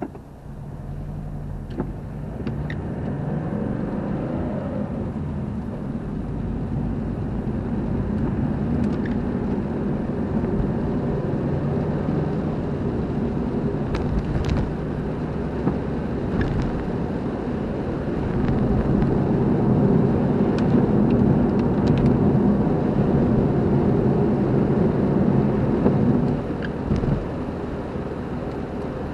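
A car driving: steady engine and road noise. It grows louder about a second in and again about two-thirds of the way through, then eases off near the end.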